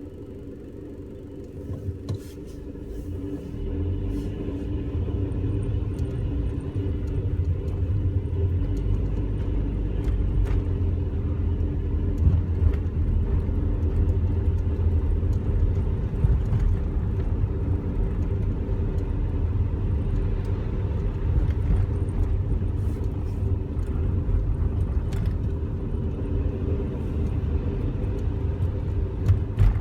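Car driving, a steady low rumble of engine and road noise that grows over the first few seconds as it pulls away and gathers speed, with a few light knocks.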